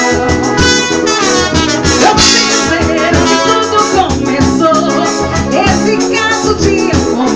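A lively song playing, with a steady beat and pitched instrumental melody lines.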